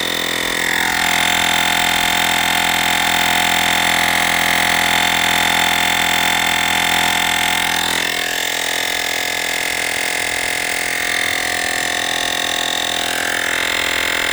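Olgeo M7 portable air compressor running steadily as it pumps up a car tire, partway between about 27 and 28 psi. It gives a steady motor-and-pump drone whose pitch shifts slightly about eight seconds in.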